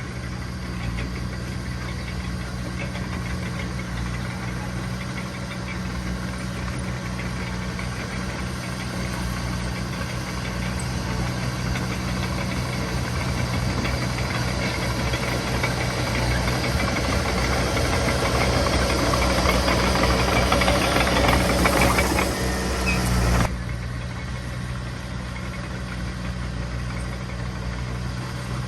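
Heavy diesel construction machinery running steadily. A louder, rougher noise builds over about ten seconds and then cuts off abruptly a few seconds before the end, leaving the steady engine hum.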